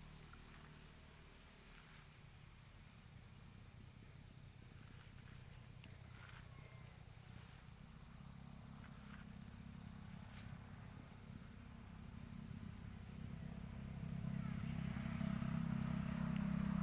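Grasshopper (belalang) calling at night: a rhythmic high-pitched pulsing, a little under two pulses a second. This is the eerie call people had taken for a snake's. A low hum grows louder near the end.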